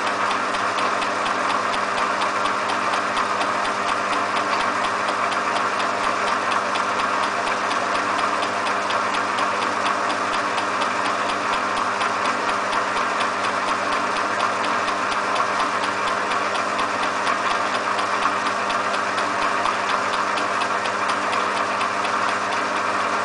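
Myford lathe running steadily, turning the base circle of a silver-steel camshaft cam at a light 5 thou cut. A steady machine hum with a fast, regular ticking throughout.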